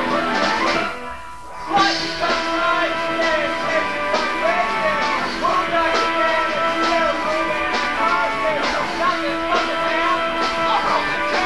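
Live rock band playing, with guitar, a regular drum beat and a voice singing over it. The music drops away briefly about a second in, then comes back in.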